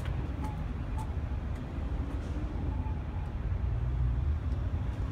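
Steady low rumble of vehicle noise, with a few faint clicks.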